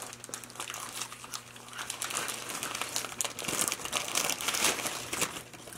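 Paper burger wrapper being unwrapped by hand, crinkling and crackling without a break, busier in the second half.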